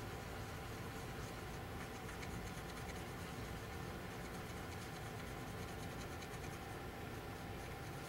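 Plastic palette knife stirring and scraping paint against a plastic palette dish: a soft, steady scratching.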